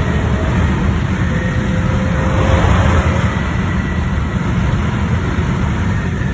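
Car driving at a steady pace: a continuous dense, low engine and road noise with a faint steady whine over it, and no sharp changes in revs.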